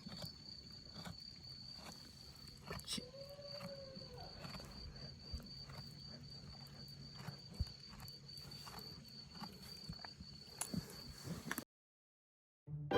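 Faint outdoor ambience held by an insect's steady, high-pitched trill, with scattered soft knocks and one short pitched call about three seconds in. Near the end the sound cuts out completely and organ music begins.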